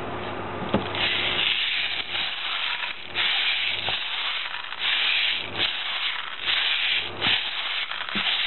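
Plastic airsoft BBs pouring from a bottle's spout into the fill port of a high-capacity airsoft magazine, a hissing rattle that comes in repeated spurts about a second long.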